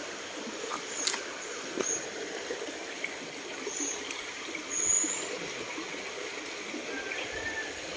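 Steady running water of a nearby stream, with a couple of faint clicks and a few brief high chirps over it.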